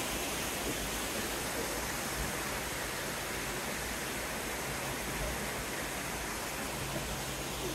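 Steady rush of a stream's flowing water, an even hiss with no breaks.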